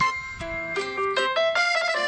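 Huawei Nova 7i ringtone playing: a quick melody of short, bright notes, several per second.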